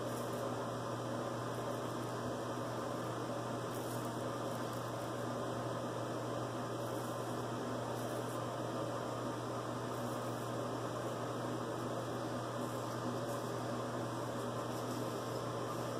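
A steady low hum with an even hiss. Faint, brief scratchy strokes of a straight razor cutting lathered stubble come and go over it.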